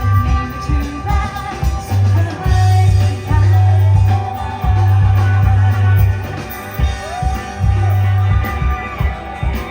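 Rock band playing live, with long held bass notes and a singing voice.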